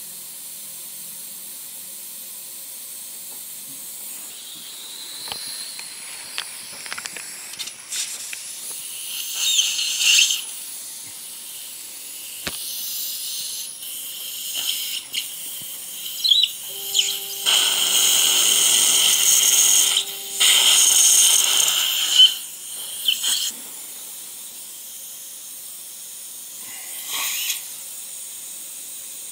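Dental surgical suction hissing, louder in irregular stretches, with an implant drill run through a positioning guide a little past the middle for about four seconds, its low steady whine under the loud suction hiss.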